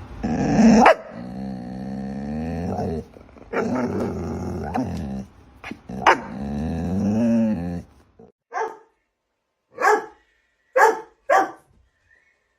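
A dog making long, drawn-out vocal sounds that waver in pitch for about eight seconds, then, after a sudden silence, four short separate barks.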